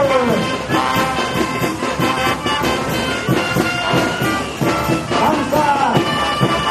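Brass band playing caporales dance music with a steady beat.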